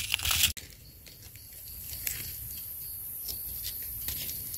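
Dry leaf litter rustling and crunching for about half a second, then a steady high-pitched insect drone with faint scattered crackles of leaves.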